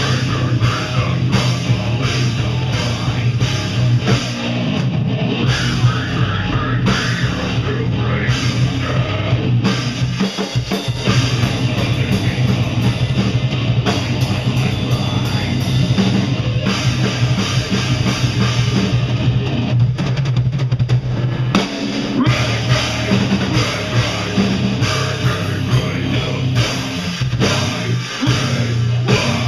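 A live heavy rock band playing loud, with distorted electric guitar, bass and a pounding drum kit. The low end drops out for a moment about ten seconds in and again just past twenty seconds.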